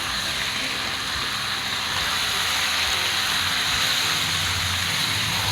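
Spiced chicken pieces frying in hot oil in the pan, a dense, steady sizzle that grows a little louder over the first couple of seconds, as the meat is browned with garam masala.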